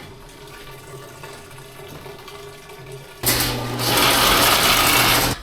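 Low steady machine hum, then about three seconds in a loud rush of water over a motor hum that cuts off suddenly.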